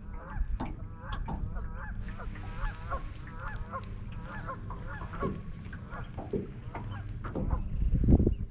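Geese honking over and over, many short calls in quick succession, over a low steady rumble that grows louder near the end.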